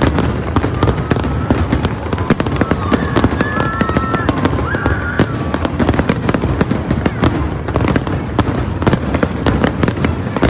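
Large aerial fireworks display: a dense, continuous barrage of bangs and crackles from many shells bursting in quick succession, over a steady low rumble.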